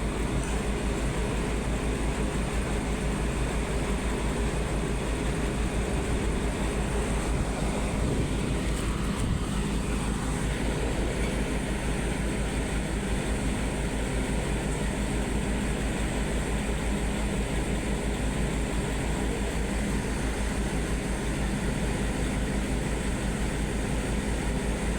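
Heavy diesel engine running steadily, with a fast, even low throb.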